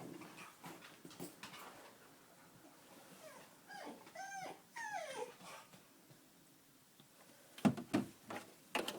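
Dog whining in a few short, high, wavering whimpers around the middle. Near the end come a few sharp knocks, louder than the whimpers.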